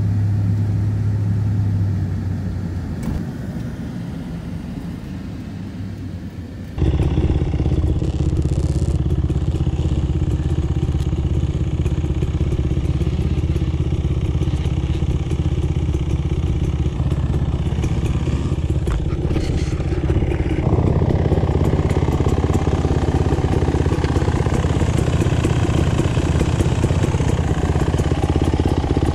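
Pickup truck driving along a road, heard from inside the cab. About seven seconds in, an abrupt change to a dirt-bike engine idling steadily close by.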